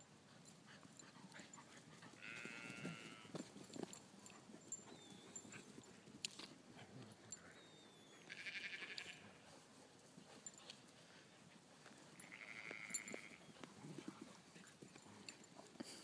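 Three drawn-out, high animal calls of about a second each, spaced a few seconds apart, over faint rustling and soft knocks.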